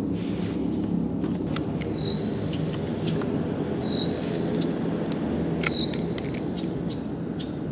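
A bird gives a short, downward-slurred call three times, about two seconds apart, over a steady low rumble.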